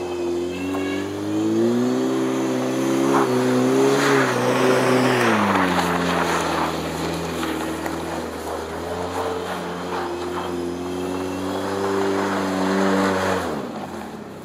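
Lowered Chevrolet S10 pickup's engine revving hard and held at high revs while its bald rear tires spin on light snow, sliding the truck round in doughnuts. The revs climb early on, dip about five seconds in, climb again and then drop away sharply near the end as the throttle is released.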